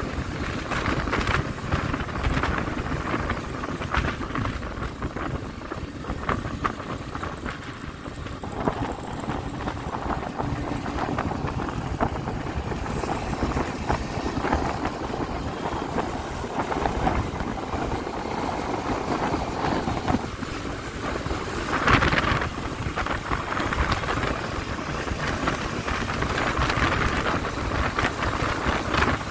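Wind buffeting the microphone of a rider on a moving Yamaha Crypton S scooter, mixed with engine and road noise. There is one brief louder gust about three quarters of the way through.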